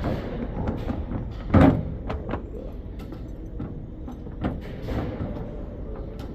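Metal tool chest drawers being slid open and shut, with clunks and clatters, the loudest knock about one and a half seconds in.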